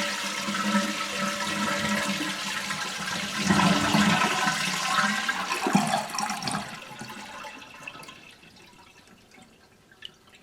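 A 2005 Crane toilet flushing with its supply valve shut off, so the tank drains without refilling: a loud rush of water that tapers off over about seven seconds into near quiet. A faint click near the end.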